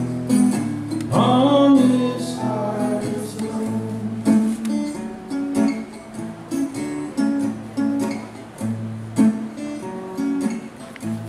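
Acoustic guitar strummed and picked in a steady rhythm through an instrumental passage of a song. A voice sings one short, bending phrase over it about a second in.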